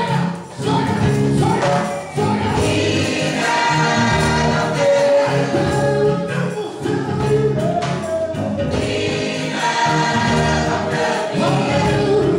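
Live gospel choir singing, with lead singers on microphones in front of the choir.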